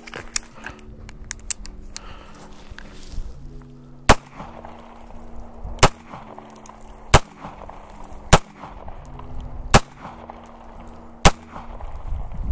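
Semi-automatic pistol fired six single shots, starting about four seconds in, one roughly every second and a half. Soft background music plays underneath.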